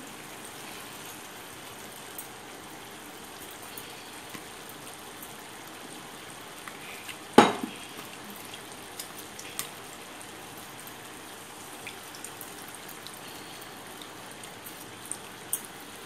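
Tamarind-and-tomato gravy simmering in a pan, a steady hiss with small bubbles popping. A single sharp knock about seven and a half seconds in.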